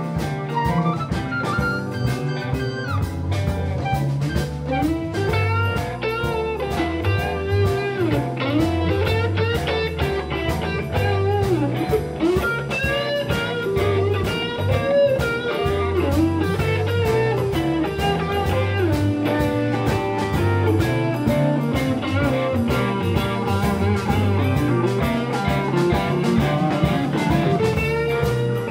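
Live electric blues band playing an instrumental: electric guitars, bass guitar and drum kit, with a lead guitar line full of bent notes.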